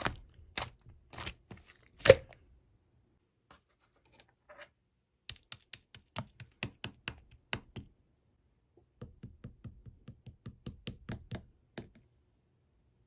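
Bursts of quick, sharp clicks and taps with a louder knock about two seconds in, a pause of a few seconds, then more runs of rapid clicks that stop near the end.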